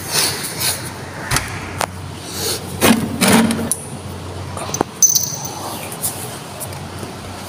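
Irregular taps, scrapes and rustles of kittens scrambling over plastic chairs, mixed with handling of the phone camera, with a louder scuffle about three seconds in, over a steady low hum.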